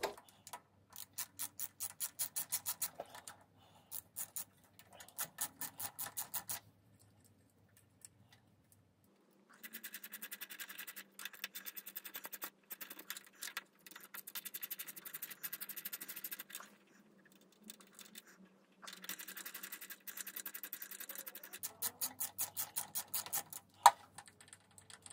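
Socket ratchet clicking in quick runs of about five clicks a second as the cylinder head bolts are undone, several runs with short pauses between. One sharp knock near the end.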